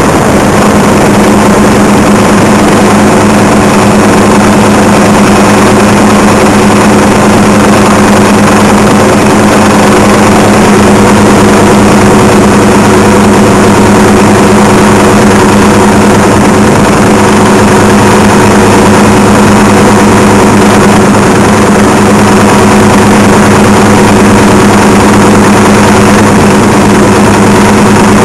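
Helicopter in flight: a loud, steady drone of engine and rotor noise with an unchanging low hum.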